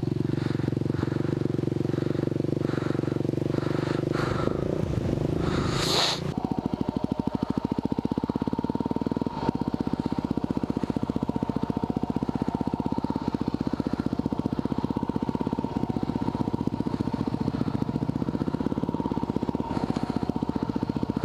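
Yamaha WR250R single-cylinder four-stroke engine idling steadily, then, about six seconds in, pulling away and running at low speed with a fast, even firing pulse.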